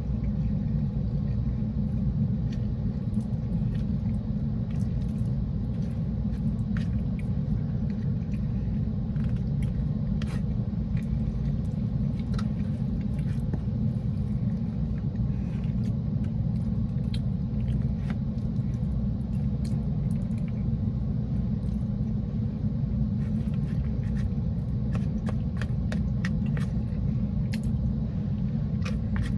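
Steady low rumble of a car heard from inside its cabin, with light scattered clicks throughout.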